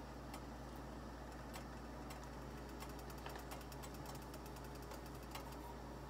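Faint, irregular clicking and ticking over a steady low hum, from a stovetop with a pot of water at a boil and a hot pan just set off the heat.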